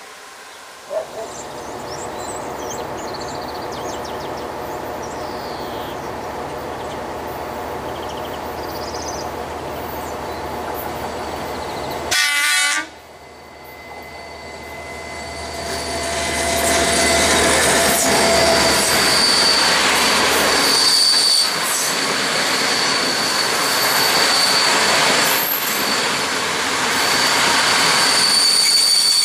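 CFR Class 65 diesel locomotive approaching with a steady engine drone, then one short horn blast about twelve seconds in. After that the locomotive and its passenger coaches pass close by, with rising rumble and clatter and a steady high wheel squeal.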